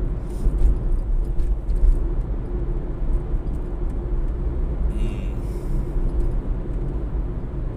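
Road and engine noise inside a moving car's cabin: a steady low rumble, with a few faint ticks in the first couple of seconds and a brief higher-pitched sound about five seconds in.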